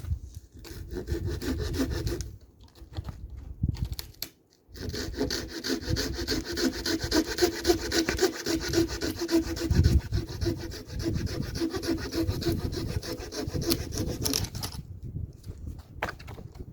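Hand saw cutting through wood in a rapid rasping rhythm: two short bouts, then one long stretch of steady strokes with a ringing note from the blade, which stops near the end.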